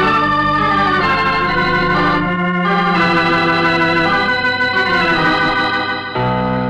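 Radio theme music played on organ: loud held chords that shift every second or two, with a change to a new chord about six seconds in.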